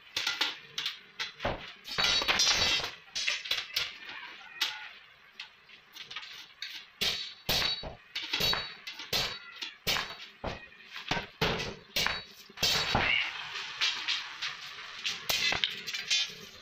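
Hand hammer striking iron on a small metal jig: repeated, irregular metal-on-metal blows, some with a short metallic ring.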